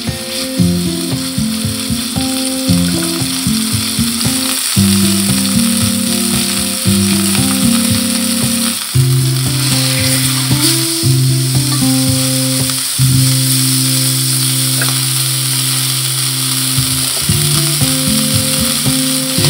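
Beef steak sizzling steadily as it sears in a hot iron pan, heard over background music with stepping low notes and held chords.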